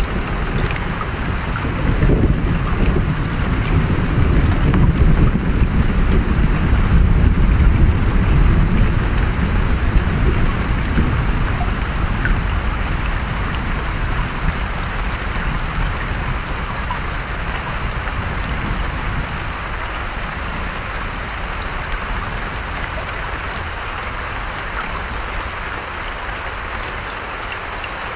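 Steady rain falling, with a long, low rumble of thunder that is strongest in the first half and slowly dies away.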